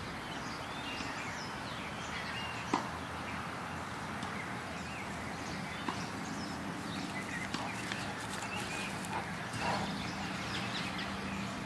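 Outdoor park ambience: birds chirping over a steady low hum, with a sharp click about three seconds in and another about six seconds in.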